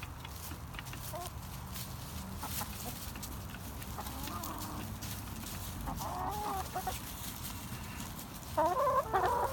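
Backyard hens clucking as they feed, with short scattered calls and a louder burst of clucking near the end, over faint ticking.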